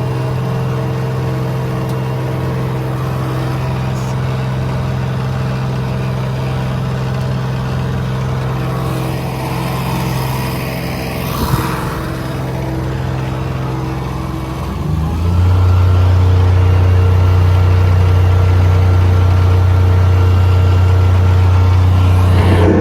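Engine of a Vanair compressor-welder-generator power unit running steadily; about two-thirds of the way through its note drops lower and it gets louder, holding there, with a brief hiss a little before.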